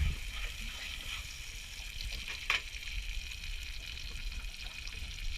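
Halved crayfish frying in melted butter with chili and garlic, a steady sizzle in the pan as it is stirred, with one sharp click about halfway through.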